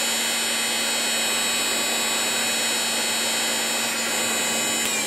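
Bosch hot-air heat gun blowing steadily at high fan speed, its motor giving a constant hum under the rush of air. At the very end a click, and the motor tone drops as it is switched to the slower fan speed.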